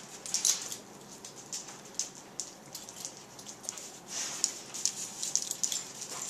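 A dog's jaws clicking together, teeth striking teeth in quick, irregular clicks that come in clusters.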